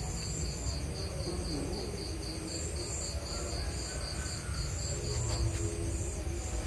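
Crickets chirping steadily in an even, repeating pulse, over a low background rumble.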